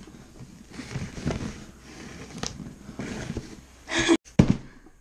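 A sword blade scraping and slicing across a cardboard shipping box, then two sharp hits about four seconds in.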